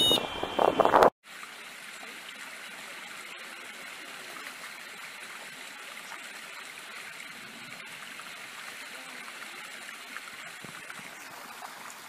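Shallow stony creek running: a steady babble of water over stones. During the first second, before an abrupt cut, a bird gives a short trilled call over loud wind noise on the microphone.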